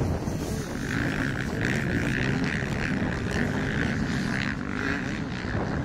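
Several motocross bikes racing through a corner, their engines revving up and down. A higher, pulsing engine note comes in about a second in and fades near the end.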